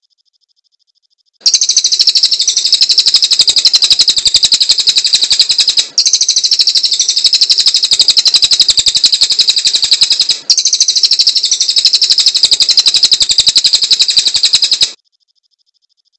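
A cililin songbird singing a loud, high, rapid trill of quickly repeated notes. The trill starts about a second and a half in, breaks off twice for an instant, and stops about a second before the end.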